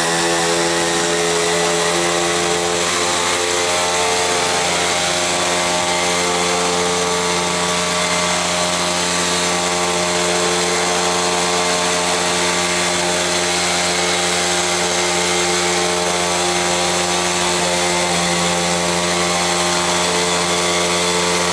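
O.S. 52 FS four-stroke model engine, converted to spark-plug ignition and running on E20 fuel with palm cooking oil, running steadily at high speed as it powers a Raptor 39 model helicopter in a hover. Its pitch holds nearly constant throughout.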